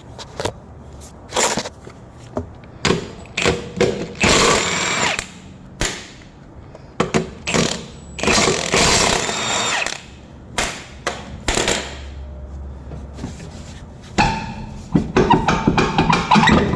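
A handheld power tool runs in two bursts of a second or two, with scattered metallic clicks and clanks of tools and parts between and after.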